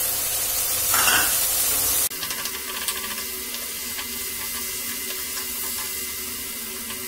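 Prawns frying in oil in a non-stick pan with a potato stuffing mix, stirred with a wooden spatula: a steady sizzle. About two seconds in, the sizzle drops suddenly to a quieter hiss with faint crackles.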